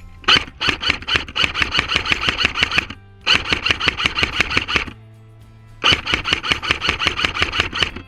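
Background music with a fast, driving beat that drops out twice for a second or less, leaving a low held note.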